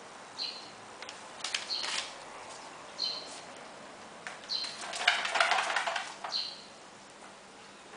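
A West Highland White Terrier puppy's claws scratching and scrabbling at its pee tray for about a second, a little past the middle. Short high chirps repeat about every second and a half throughout.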